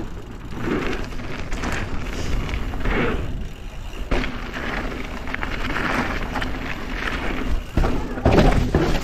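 Mountain bike ridden fast over dirt and wooden features: tyres rumbling over packed dirt and wood chips with wind noise, broken by uneven thuds and knocks from the drop and wooden ramps, loudest near the end.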